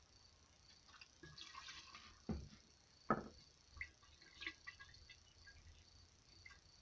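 Hydrochloric acid trickling from a plastic bottle into a glass jar of foils and filters. Then two dull knocks, and faint small clicks and sloshing as the jar is swirled by hand.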